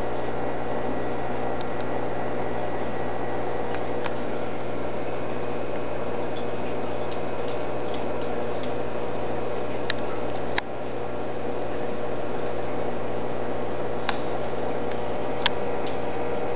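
Steady hum and hiss of a nano reef aquarium's running equipment, with a few sharp single clicks, the loudest about two-thirds of the way through.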